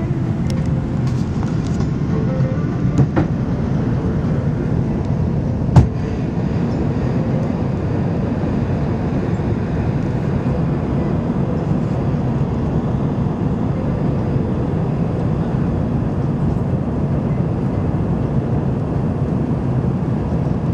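Steady low rumble of engines and airflow inside an Airbus A330's passenger cabin during the descent on approach, with one sharp thump about six seconds in.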